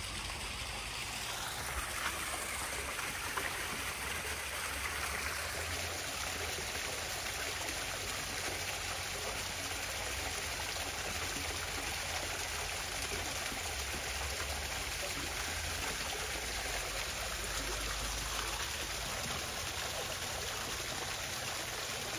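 Steady rushing of running water, with a low rumble underneath.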